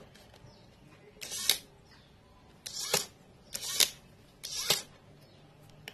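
Four short mechanical sounds, about a second apart, from the home-made launcher's DPDT switch and SG90 micro servo mechanism being worked.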